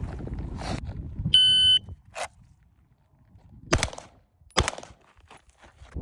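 Shot timer giving its start beep, a high electronic tone lasting about half a second, followed over the next few seconds by a few short, sharp knocks.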